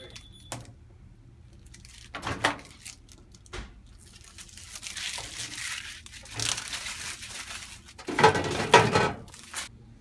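Plastic film and packing material crinkling and tearing as they are peeled off a microwave's door and pulled out from inside it, with a few short knocks; the loudest crinkling comes about eight seconds in.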